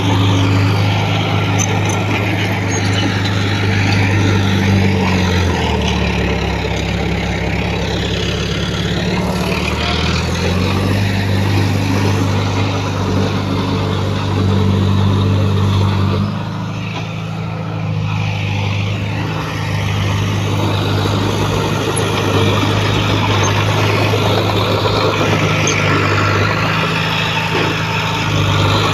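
Heavy diesel engine of earthmoving equipment running steadily under work. Its note drops lower for a few seconds about six seconds in, then comes back up, and it eases briefly around the middle.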